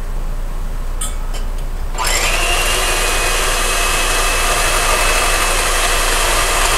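Electric hand mixer switched on about two seconds in, spinning up quickly to a steady whir as its beaters whip eggs, with a few light clicks just before it starts.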